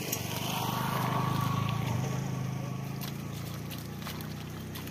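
Water splashing and sloshing as hands wash a wooden plough in a shallow stream, over a steady low hum that swells about a second in and then eases off.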